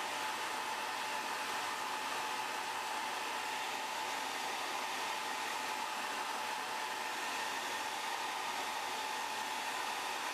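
Hand-held hair dryer running steadily on the phone's front glass, a rush of air with a faint steady whine, heating the glass to loosen its adhesive.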